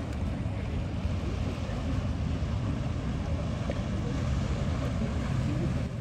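Wind buffeting the microphone outdoors: a steady low rumble with no clear pitch, holding an even level throughout.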